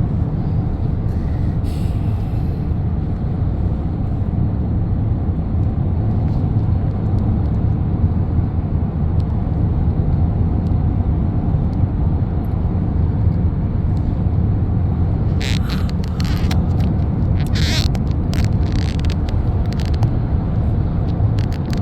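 Steady road and engine drone inside a moving car's cabin, with several brief scratchy noises about three-quarters of the way through.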